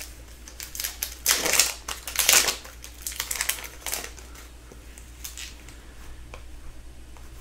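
Hockey trading cards and a foil pack wrapper handled by hand: loud crinkling rustles between about one and three seconds in, then softer ticks and rustles as the cards are sorted.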